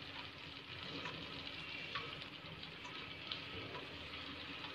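Yogurt-marinated chicken pieces frying in oil in a pan: a faint, steady sizzle with a few light ticks.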